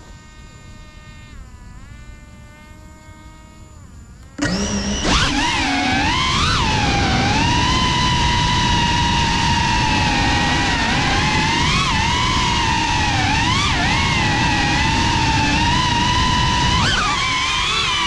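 GEPRC CineLog35 FPV drone's motors and propellers, heard through the onboard camera. First a quiet steady whine as the armed motors idle on the pad, then about four seconds in a sudden jump to a loud whir as it takes off, the pitch rising and falling with the throttle as it flies.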